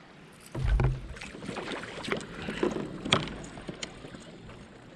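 Gear being shifted around on a paddle board afloat: a low thump just under a second in, then scattered knocks and clicks, the sharpest a little after three seconds.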